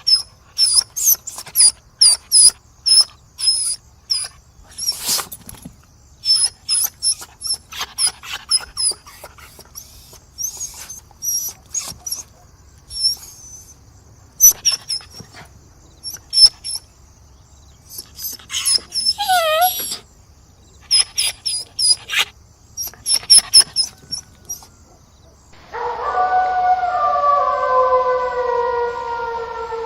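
A dog barking repeatedly in short, sharp barks and yips. About three quarters of the way through the barks give way to a long, drawn-out howl that slowly falls in pitch.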